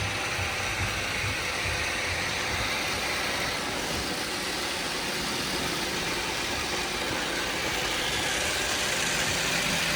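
Several robot vacuum cleaners running together, a steady mechanical hum of motors and brushes.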